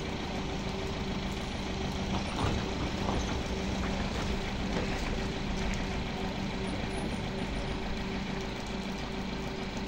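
Recovery truck's engine running steadily with a low hum while its crane rope hauls a car, with a brief knock about two and a half seconds in.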